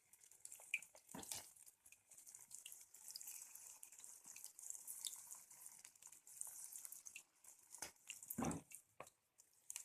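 Gram-flour-coated okra pieces sizzling faintly in hot oil as they deep-fry, a steady hiss dotted with small crackles and a few sharper pops.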